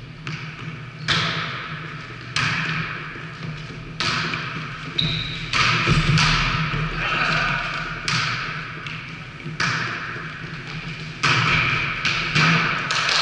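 A volleyball being struck during a rally in a large gym: about ten sharp slaps, each followed by a long echo in the hall, coming at irregular gaps of one to two seconds.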